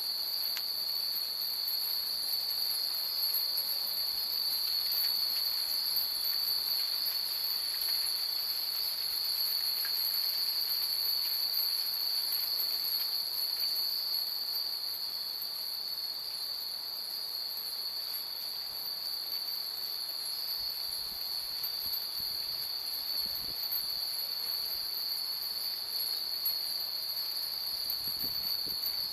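Many hanging Japanese furin wind chimes tinkling faintly now and then, over a steady, unbroken high-pitched drone.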